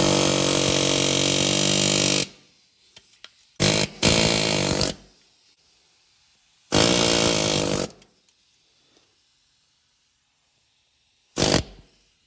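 Straight pneumatic die grinder running in four bursts: about two seconds at the start, then two shorter spells in the middle and a brief blip near the end. It is grinding away the crown of the seized number-four piston in a 440 big-block cylinder to free it.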